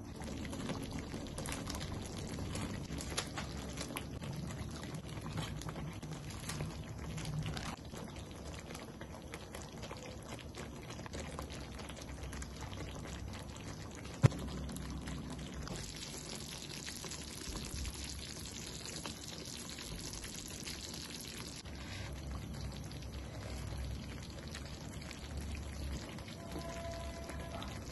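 Creamy tomato sauce simmering and bubbling in a frying pan as chicken cooks in it, with a spoon scooping and stirring through the sauce. A single sharp click comes about halfway through.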